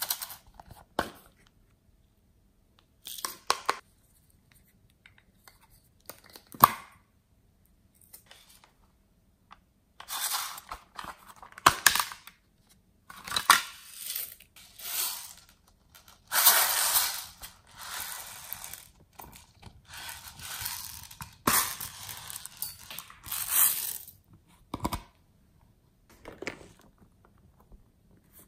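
Plastic clicks and knocks as a small plastic case is opened and handled. Then, from about a third of the way in, repeated rustling, rattling pours of loose sequins and glitter shaken out of the case onto slime, with a few more handling clicks near the end.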